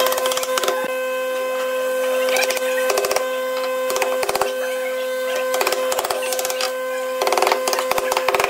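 Wooden mallet knocking the rails of a wooden frame together at their corner joints: a string of sharp taps, some in quick clusters, the busiest flurry near the end. A steady hum runs underneath.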